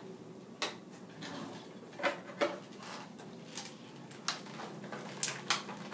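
Scattered light clicks and knocks of household objects being handled, about seven sharp taps spread over several seconds, the clatter of looking for a knife to open the airtight treat package.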